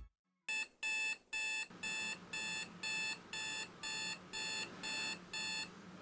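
Electronic alarm beeping, about two beeps a second, sounding as a morning wake-up alarm and stopping near the end.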